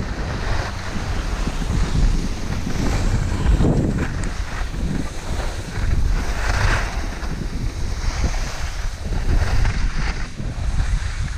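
Wind rushing over a skier's body-worn camera microphone during a downhill run, with skis hissing and scraping over groomed snow in swells as the turns come.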